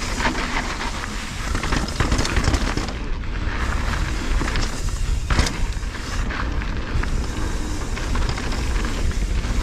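Wind buffeting the microphone of a camera on a mountain bike descending a dry dirt trail, with the tyres rumbling over the dirt and the bike rattling and clattering over bumps; a sharper knock comes about five seconds in.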